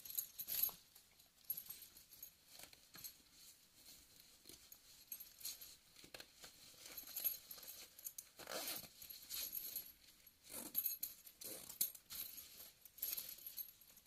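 Scattered light clicks and rustles with quiet gaps between them, the sound of gear being handled.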